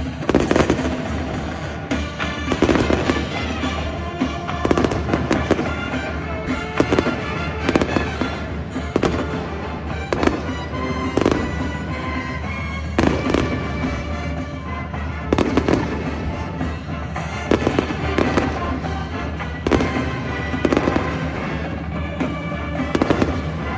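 Aerial fireworks shells bursting and popping repeatedly, about every one to two seconds, over music playing throughout.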